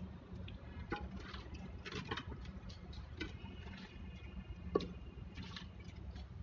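Faint, scattered wet pats, squelches and small clicks as mud slurry is spread by hand over a clay chulha (mud stove) and poured from a steel bowl, with one sharper click about five seconds in.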